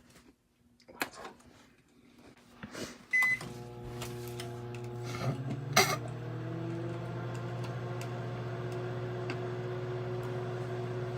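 Microwave oven being started: a few clicks, a short beep about three seconds in, then the oven running with a steady hum.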